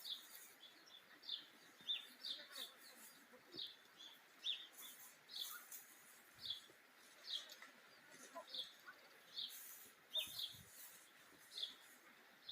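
A small bird chirping: short, falling calls repeated about once or twice a second over faint background hiss.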